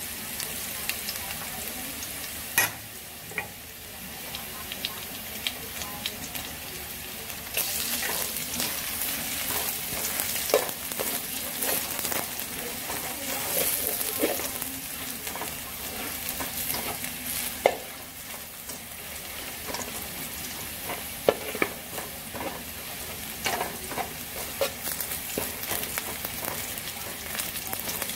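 Oil sizzling steadily in a stainless steel wok while a metal spatula stirs and scrapes chopped aromatics, with sharp metal-on-metal clinks of the spatula against the wok now and then.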